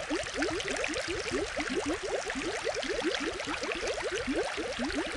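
Aquarium water bubbling and gurgling steadily: a dense stream of quick rising blips over a constant hiss.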